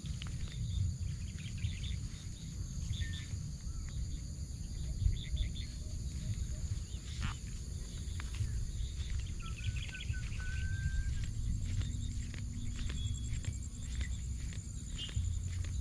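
Wind rumbling unevenly on the microphone, under a steady high insect drone with a few short bird chirps.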